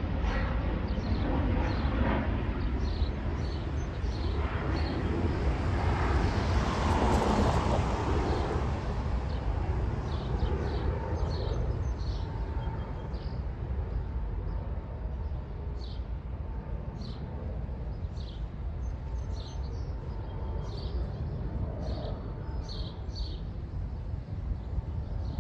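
Jet airliner climbing after takeoff: a broad engine rumble that swells to its loudest several seconds in, then slowly fades as the plane draws away.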